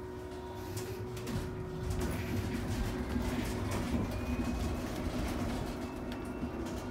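Cabin sound of an Ebusco battery-electric city bus under way: a steady electric hum over low road rumble, which grows louder about two seconds in as the bus picks up speed. A faint rising whine is heard a few seconds in.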